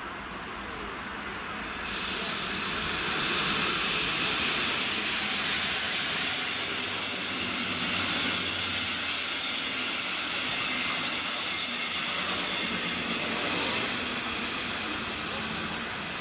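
Double-deck regional passenger train passing on a nearby track: a steady rushing of wheels on rails that swells about two seconds in, holds, and fades out near the end.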